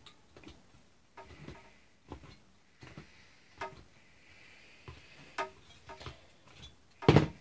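Pliers gripping and bending a thin tin-can-bottom saw blade back into shape: a string of light metallic clicks and taps, with one louder knock near the end.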